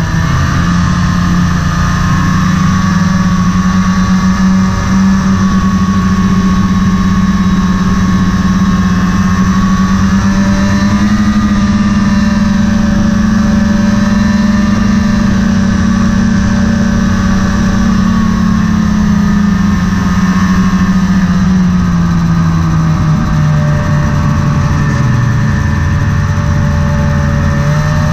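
Snowmobile engine running steadily while riding along the trail, its pitch falling a little about three-quarters of the way through.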